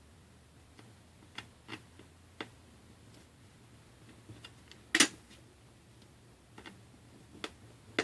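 Light metal clicks and taps of a small screwdriver on tiny screws and the phone's parts during iPhone 5 reassembly, scattered and irregular, with one louder clack about five seconds in.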